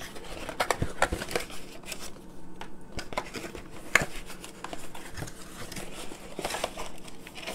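Cardboard window box of a two-pack of carded action figures being handled and opened: scattered rustles, crinkles and clicks of cardboard and plastic packaging, with a sharper click about four seconds in.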